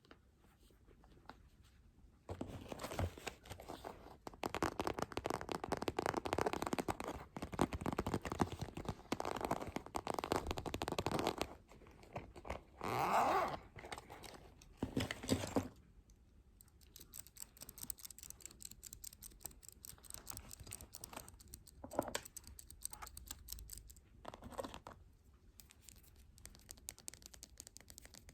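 Close-miked ASMR trigger sounds made by hand on objects: a dense crackling from about two seconds in until near the middle, a short louder sweep, then lighter, quick ticking and scratching.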